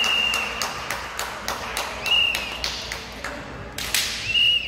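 Kendo fencers' shouted kiai, three high drawn-out cries about two seconds apart, over the sharp clacking of bamboo shinai and stamping feet on a wooden gym floor. A louder strike comes a little before the last cry.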